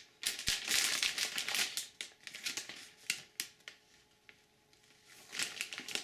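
Plastic packaging crinkling and rustling with small clicks as a motherboard is handled and worked out of its package. It comes in irregular bursts, dies down for about a second around four seconds in, then rustles again near the end.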